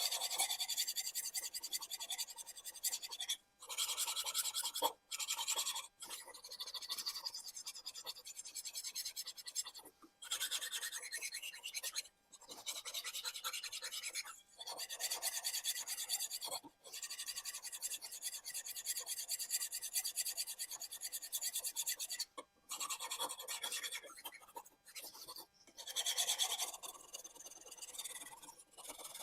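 Japanese kitchen knife blade being sharpened on a whetstone, scraping back and forth in long runs of strokes broken by short pauses.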